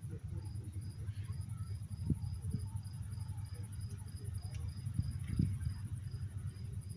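Crickets chirping: a high chirp repeated evenly about three times a second, with a faster high pulsing trill above it, over a steady low rumble.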